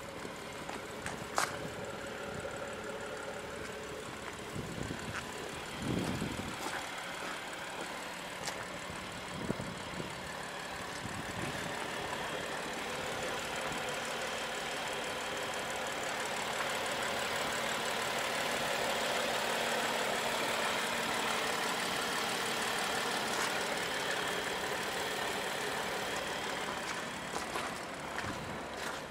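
BMW M2's N55 3.0-litre turbocharged straight-six idling steadily through a Scorpion exhaust with catless downpipes and an Eventuri carbon intake. A few low thumps and clicks come and go over it.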